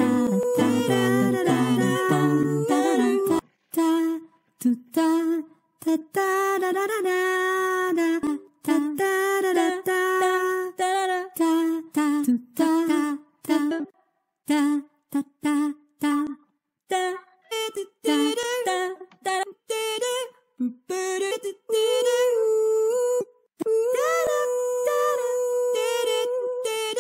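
A cappella vocal music: short hummed and sung notes in several voices taking turns, each cartoon bird with its own part, broken by many brief gaps. A backing track with low notes plays under it at first and stops about three seconds in.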